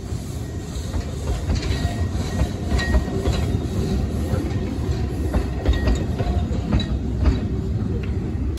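Narrow-gauge passenger coaches rolling past close by, wheels clattering over rail joints and points with irregular clicks over a steady rumble, and a few brief thin wheel squeals.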